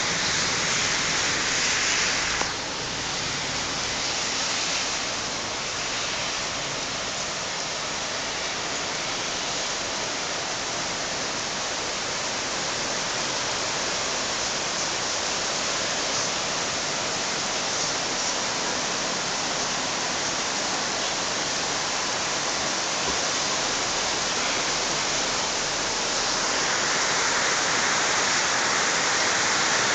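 Heavy rain pouring down in a dense, steady hiss, a little louder near the start and again near the end.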